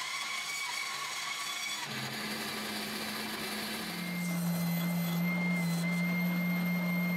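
Woodworking power tool running steadily with a motor hum over a hiss. The hum shifts pitch about two seconds in and grows louder and stronger about four seconds in.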